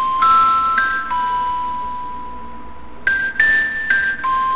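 An iPhone ringtone playing through the phone's speaker: a slow melody of clear, bell-like notes. A short rising run ends in a long held note, and a second phrase of notes begins about three seconds in.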